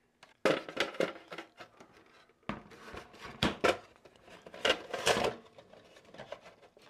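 The outer case shell of a Synology DS920+ NAS being slid along and fitted back over the chassis: clusters of rattling clicks, knocks and scrapes of the panel against the frame, three bursts about a second apart.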